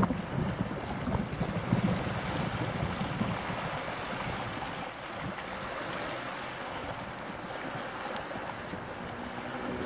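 Wind buffeting the microphone over a steady rush of sea, with gusty low rumbles strongest in the first few seconds.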